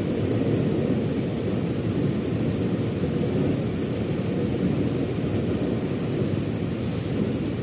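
Steady low rumble of a metro train running, heard from inside the carriage: an even roar of wheels and running gear with no distinct clacks or announcements.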